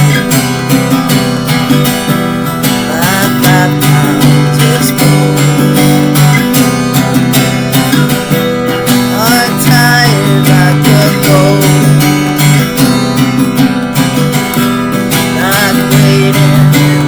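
Acoustic guitar strumming steady chords in a song demo, with a few short gliding high notes over it.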